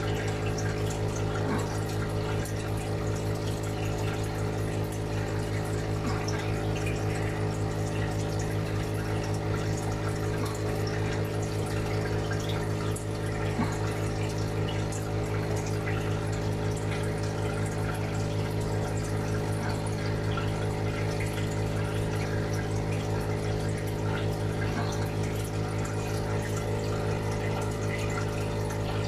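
Aquarium filter pump humming steadily, with water trickling and bubbling in the tank.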